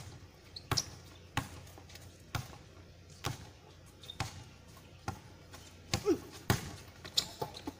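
A basketball bouncing on a hard outdoor court, a sharp bounce about once a second, as in dribbling.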